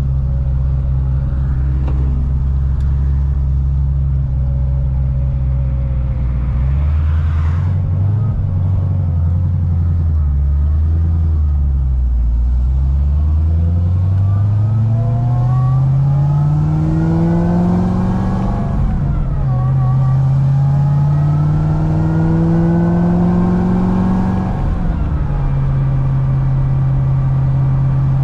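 Supercharged LS9 V8 of a roughly 1000 hp C6 Corvette ZR1, running steadily at low revs at first. About halfway through it accelerates hard with the revs climbing, drops sharply at a gear change, and climbs again through a second pull. Near the end the revs fall back to a steady cruise.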